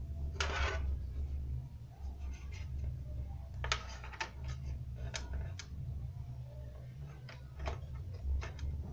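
Hands handling desktop PC parts: a short scraping rustle, then a string of sharp plastic-and-metal clicks and taps at uneven intervals, over a steady low hum.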